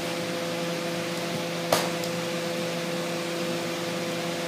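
Lampworking torch flame hissing steadily on a glass tube being heated for a bend, under a steady hum, with one sharp click a little under two seconds in.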